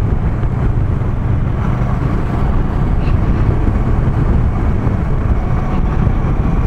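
Motorcycle riding at a steady pace, with a constant low engine and road rumble mixed with wind noise.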